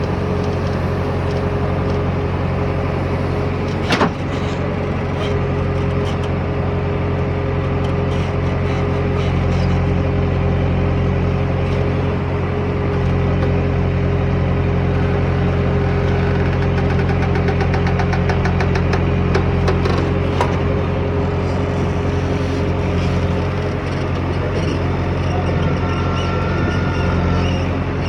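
JCB 3DX backhoe loader's diesel engine running steadily. There is one sharp metallic knock about four seconds in, and a rapid rattle of clicks a little past the middle.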